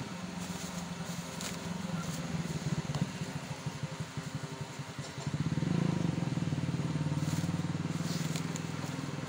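A small engine running steadily with a fast, even pulsing, growing louder about five seconds in. A plastic bag of mangoes rustles now and then.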